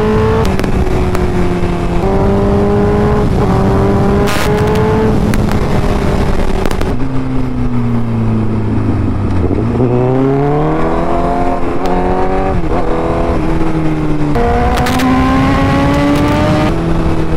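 Sport motorcycle engine accelerating hard through the gears: its pitch climbs and drops back at each upshift, sags as the rider eases off in the middle, then pulls up steeply again, all over a steady rush of wind.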